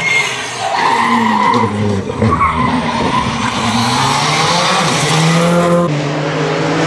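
Rally car engine revving up and down through gear changes, with tyres skidding. Near the end the sound changes abruptly to a steadier engine note.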